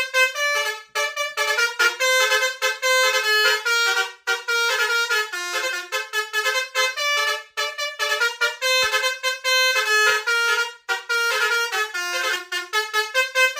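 Basuri 'om telolet' musical bus horn playing a tune: a quick, continuous run of short, bright horn notes that change pitch several times a second, with brief breaks between phrases.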